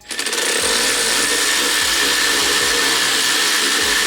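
Handheld power tool running steadily with a constant whine, driving in the bolts that hold down the coil packs on a Nissan Skyline R34 engine.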